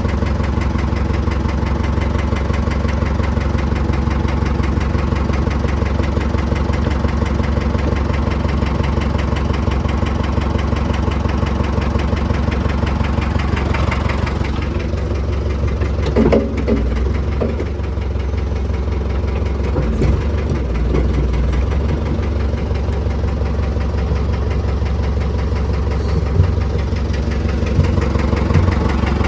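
Truck engine running steadily at idle while it drives the power-steering pump that works the hydraulic winch. A few short clunks come about halfway through.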